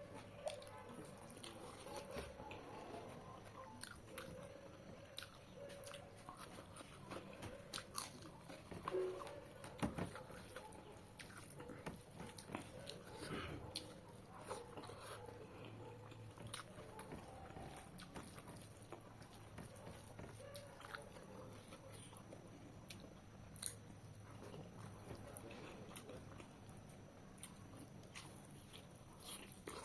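A person eating chicken curry close to the microphone: chewing and biting, with irregular small clicks and crunches.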